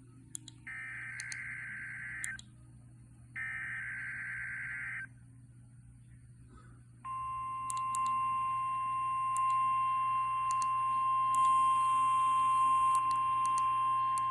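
A NOAA Weather Radio receiver sounding a Required Weekly Test: two short bursts of SAME digital header data, each under two seconds, then, about seven seconds in, the steady 1050 Hz weather alert tone.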